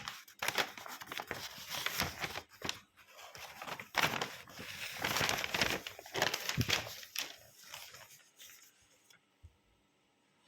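Paper rustling and scratching in a string of short, uneven strokes that die away near the end.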